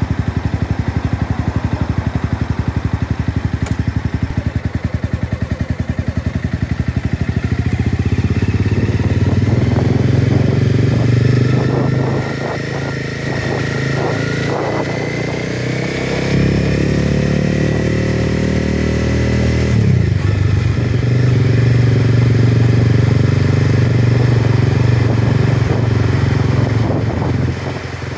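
Motorcycle engine running under way. It eases off briefly a little before halfway, then climbs in pitch as it accelerates and settles back to a steady run.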